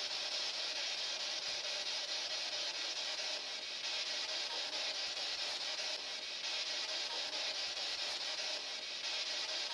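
Steady hiss with a faint steady hum underneath: the recording's background noise in a quiet room, with no distinct sounds.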